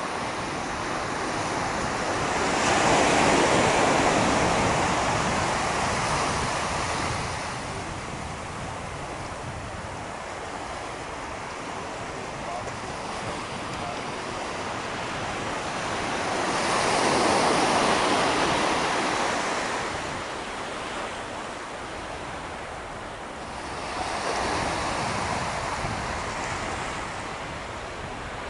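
Gentle surf on a sandy, rocky beach: small waves breaking and washing up the shore, swelling louder three times, about three seconds in, in the middle and near the end, with some wind rumbling on the microphone.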